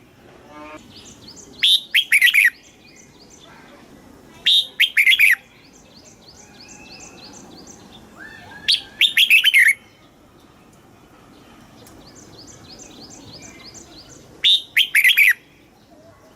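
Red-whiskered bulbul singing: four short, loud, warbling phrases, each about a second long, spaced a few seconds apart. Fainter rapid chirping fills the gaps between phrases.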